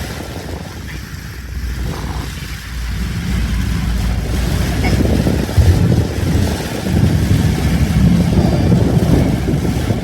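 A vehicle driving through waterlogged, flooded road in heavy rain: steady rushing and splashing of water with engine noise underneath, getting louder about three seconds in.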